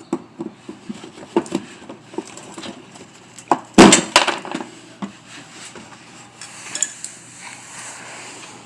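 Scattered clicks and clinks of a tool working at stubborn plastic push clips on a car's bumper, with a loud clatter about four seconds in.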